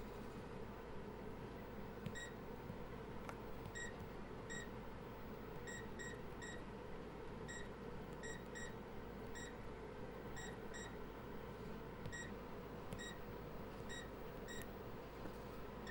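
Bowling-alley scoring computer beeping: short, high, identical beeps at an uneven pace, some in quick pairs, over a steady background hum.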